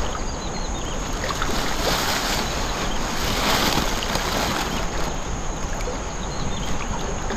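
Steady rush and lapping of muddy floodwater around people wading waist-deep in a river, with wind on the microphone.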